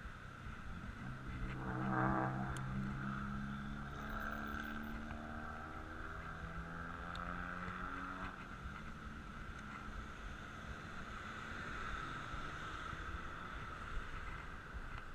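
A motor vehicle's engine passes close by, loudest about two seconds in, then falls in pitch and fades away over the next several seconds. Under it runs a steady hiss and low rumble of wind and road noise from a moving bicycle.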